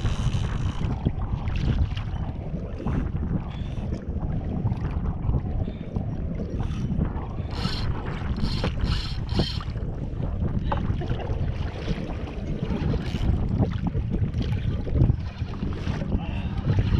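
Wind rumbling on the microphone of a fishing kayak on choppy water, with water against the hull. There are scattered small knocks, and a few short sharp noises about eight to nine seconds in.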